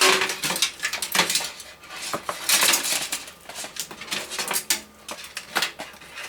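Cables and small parts being handled inside a metal computer case: a busy run of rustling, clicking and light clattering.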